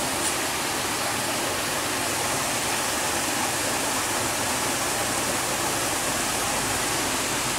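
Water rushing steadily through a concrete sluice gate, an even, unbroken rushing noise.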